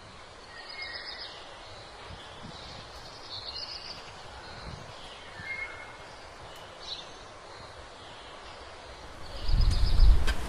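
Outdoor ambience with small birds chirping now and then, short high chirps over a faint steady hiss. Near the end comes a loud low thump.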